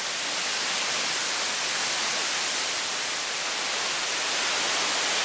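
La Fortuna waterfall's falling water making a steady, even rushing hiss.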